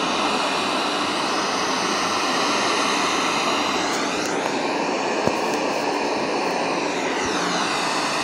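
Steady hiss of radio static played through a loudspeaker by a small mini amplifier refitted with a TDA7057 amplifier chip. The hiss has a whooshing sweep in its tone about four and seven seconds in.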